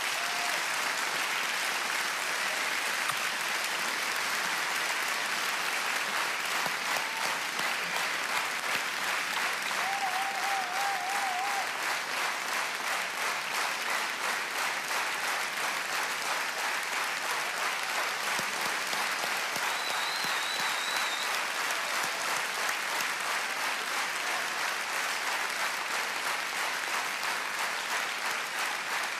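Large theatre audience giving a long standing ovation: dense, steady clapping that holds at an even level throughout.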